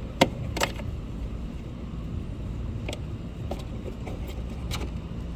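A few sharp clicks and knocks of a tail light housing and its bulb socket being handled and worked loose, the loudest just after the start and another about half a second later, over a steady low rumble.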